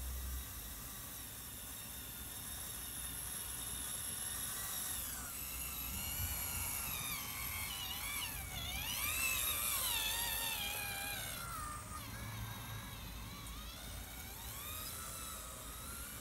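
Radio-controlled model road roller's electric drive whining as it drives, the pitch rising and falling with its speed; loudest around the middle.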